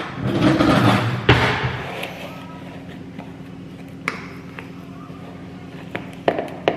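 Ripe bananas being mashed in a mixing bowl: rough squishing strokes for the first second and a half, then a few sharp taps of the utensil on the bowl from about four seconds in.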